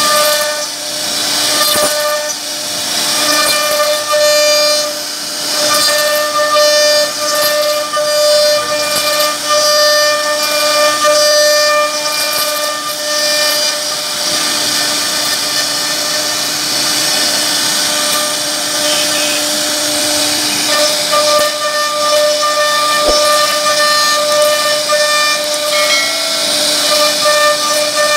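CNC router spindle carving wood: a steady high-pitched whine from the spindle over the hiss of the bit cutting, rising and falling in strength as the cut moves.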